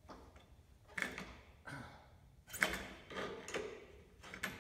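Several sharp metal knocks and clunks, roughly a second and a half apart, with fainter scraping between them. They come from a Bridgeport milling machine head being forced by hand as its drive belt is pushed in to slacken the motor.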